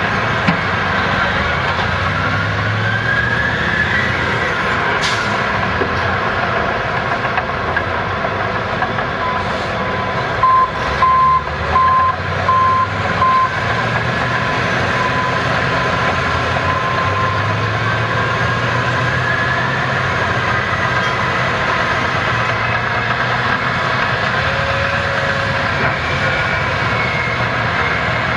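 Caterpillar 769 off-highway haul trucks' diesel engines running under load, the pitch rising and falling with the revs. Near the middle a reversing alarm beeps about five times.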